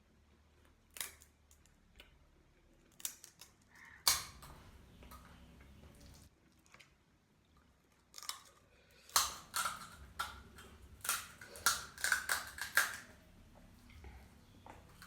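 Close-miked crunching and chewing of crisp food: a few single crunches, then a quick run of loud crunches about eight seconds in that eases off near the end.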